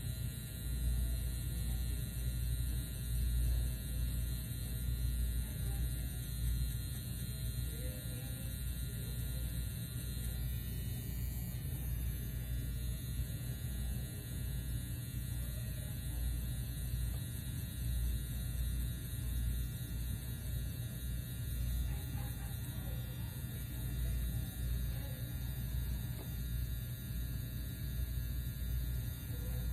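Pen-style permanent-makeup machine buzzing steadily as its needle cartridge works along an eyebrow.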